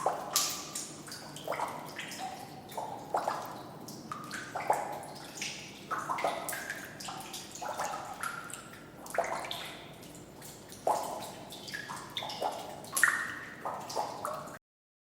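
Water dripping close up in a sewer culvert: irregular drips, a few each second, each a short pitched plink over a faint hiss. The dripping stops abruptly near the end.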